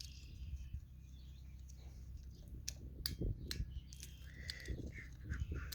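Small clicks and handling noises of a motorcycle turn signal switch's plastic parts being fitted back into the switch housing, with several sharp clicks around the middle.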